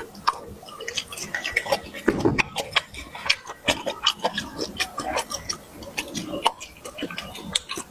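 A person chewing food close to the microphone: wet mouth clicks and lip smacks, several a second in an uneven rhythm.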